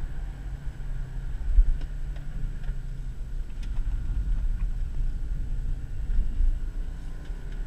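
Engine and road rumble inside the cabin of a 2000 Subaru Legacy GT Limited driven hard through tight bends, its 2.5-litre flat-four running steadily under load.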